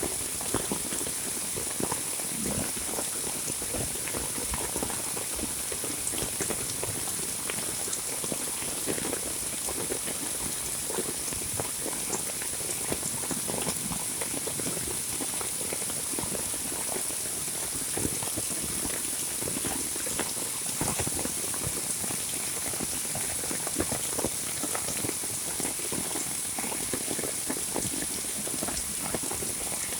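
Heavy monsoon rain: a dense, steady patter of drops striking surfaces, with no let-up.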